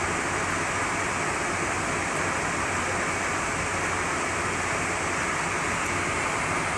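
Steady rushing of wind and water heard from the deck of a cruise ship under way, even throughout with no horn or other distinct event.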